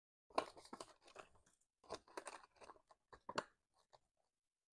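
Paper banknotes rustling and flicking as a small stack of bills is handled and counted, then the clear plastic sleeves of a ring binder crinkling as a page is handled. It comes in short bursts of crisp crackle, with the sharpest snap about three and a half seconds in.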